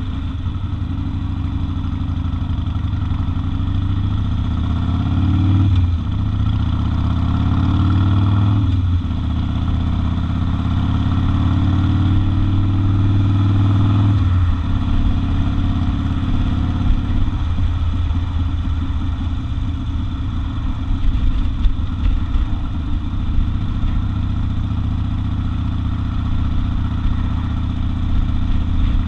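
Harley-Davidson XL 1200 Custom's air-cooled V-twin engine pulling up through the gears: the engine note climbs, drops sharply at shifts about 6 and 9 seconds in, climbs again, then falls away about 14 seconds in as the throttle is backed off, running at a lower, uneven note afterwards.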